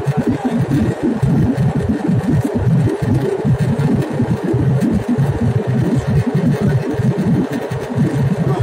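Jet airliner cabin noise in cruise: the steady, loud low rumble of the engines and airflow heard from inside the cabin, with an uneven, churning low end.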